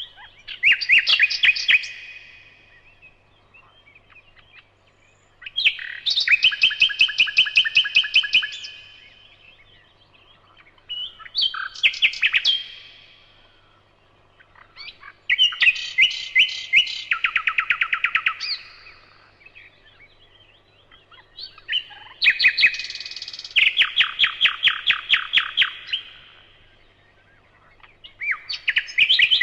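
A songbird singing the same kind of phrase over and over, six times. Each phrase is a fast trill of repeated notes lasting a couple of seconds, with pauses of a few seconds between phrases.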